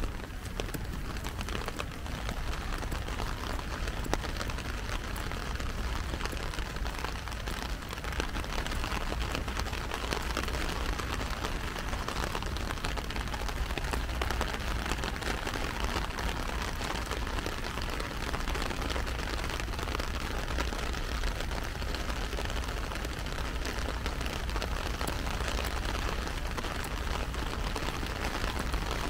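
Heavy rain falling on an umbrella held overhead: a steady, dense hiss of many drops, with a low rumble underneath.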